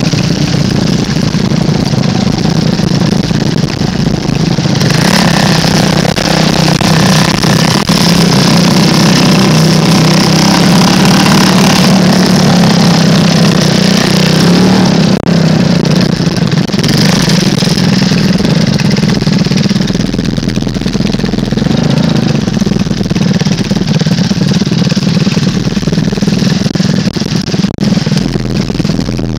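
Small off-road vehicle engine running steadily at low trail speed. It grows louder and harsher from about five seconds in, settling back down after about twelve seconds.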